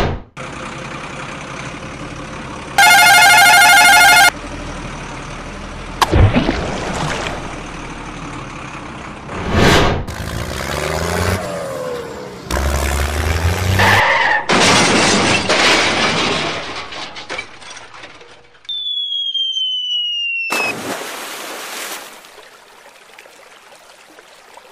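A string of added sound effects for a toy tractor: engine-like noise, a loud blaring horn-like tone about three seconds in, several crash and whoosh hits, and a whistle that slides down in pitch for about two seconds. Near the end it drops to a quieter, even water sound.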